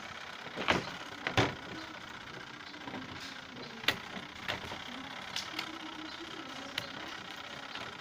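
Wires and pliers being handled on a washing machine's wiring: a few short, light clicks and taps, two louder ones in the first couple of seconds, over a steady background hum.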